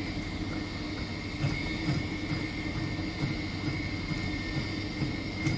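Electric power tool motor running steadily with a constant whine, a faint regular pulse about twice a second, used to clean up a part of an old hand-crank post drill.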